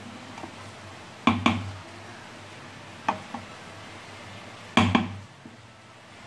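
Wooden spatula stirring cooked khichuri in a stainless-steel pot, knocking against the metal pot in three pairs of sharp clacks, one pair every second and a half or so.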